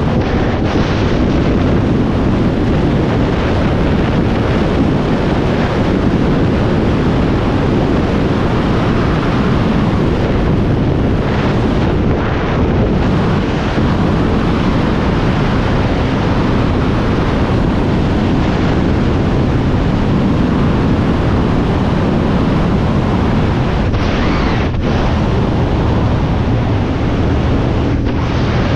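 Heavy, steady wind rush on an action camera's microphone at highway speed, with a sport motorcycle's engine running underneath it.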